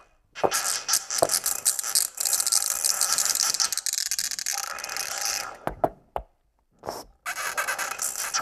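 Experimental electronic noise music: dense crackling noise and clicks, mostly high in pitch, cut off abruptly to silence at the very start and again twice in quick succession about three-quarters of the way through.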